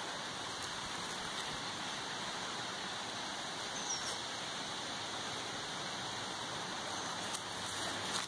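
Steady, even hiss of outdoor background noise, with a single short high chirp about four seconds in.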